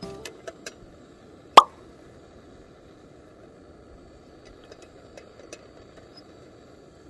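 An aluminium mess tin set down on a gas canister stove's pot supports: a few light metal clicks, then one sharp clink about a second and a half in. Over a steady low rush of the stove burning, a few faint ticks follow near the middle.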